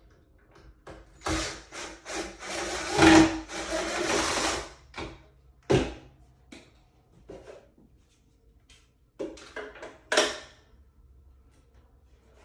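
A cordless drill driving screws into pine boards: one long run of a few seconds starting about a second in, then a short burst near the end. Knocks of wood and tool handling come in between.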